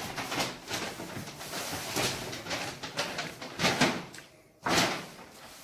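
T-shirts being picked up and handled, a run of rustles with a sharper, louder rustle about four and a half seconds in.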